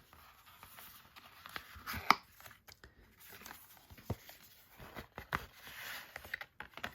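A paper envelope being handled and opened: soft rustling with scattered light taps and clicks, the sharpest tap about two seconds in.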